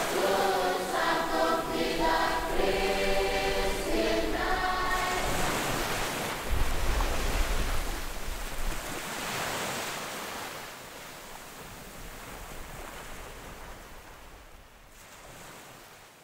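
A choir singing, which stops about five seconds in. A steady rushing noise follows, with a low rumble for a couple of seconds, and it fades away gradually.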